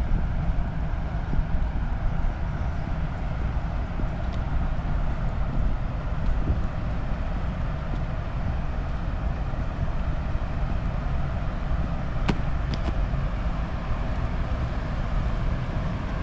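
Steady outdoor city background noise with a heavy low rumble, and a couple of faint short clicks about twelve seconds in.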